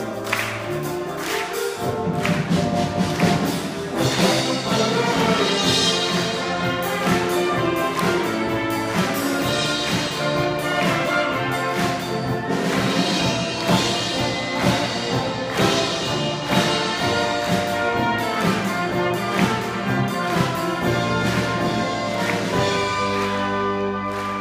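School wind band playing: brass and woodwinds in full chords over repeated percussion strikes. The sound grows fuller in the low range about two seconds in, and settles into held chords near the end.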